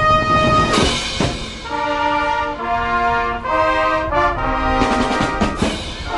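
Marching band brass section playing: a held note gives way to sharp percussion hits about a second in, then a run of short brass chords stepping in pitch, with more hits near the end.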